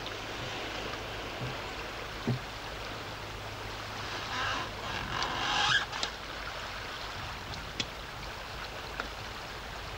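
Sea water washing along a boat's hull, steady, with a low hum beneath. A louder rush of water swells about four to six seconds in, and a few light knocks sound from the deck.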